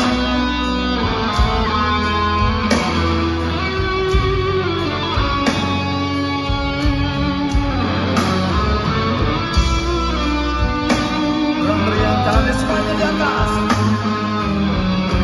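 Live rock band with an electric guitar solo played over bass guitar and drums.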